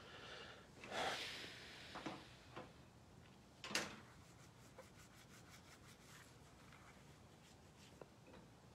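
Faint rubbing and scuffing sounds with a few soft knocks, the sharpest a short click just under four seconds in.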